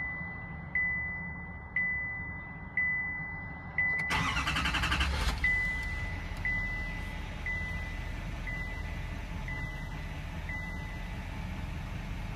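A Chevrolet Silverado 2500HD's 6.6-litre Duramax diesel V8 is cranked and starts about four seconds in, then settles into a steady idle. A dashboard warning chime dings about once a second until near the end.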